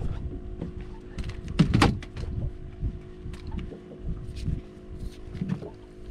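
Water slapping against a small fishing boat's hull, with scattered knocks and bumps on the deck over a steady low hum; one louder knock comes about a second and a half in.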